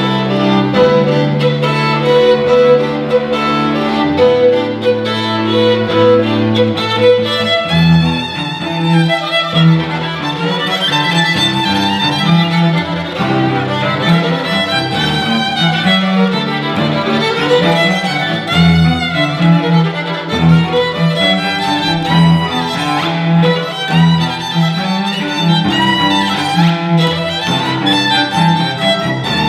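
Violin and cello duo playing. The cello holds long low notes at first, then about seven seconds in breaks into short, driving repeated notes under fast-moving violin lines.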